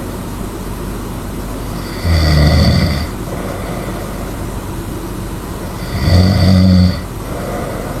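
A person snoring loudly in sleep: two deep, buzzing snores about four seconds apart, each lasting about a second, over a steady background hiss.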